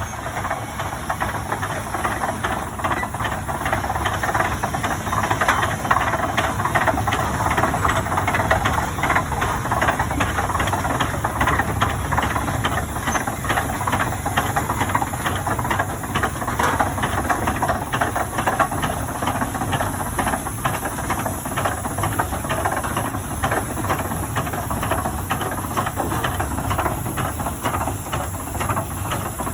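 1912 Huber 18-50 steam traction engine running, its exhaust beating in a steady, even rhythm over a constant hiss of steam.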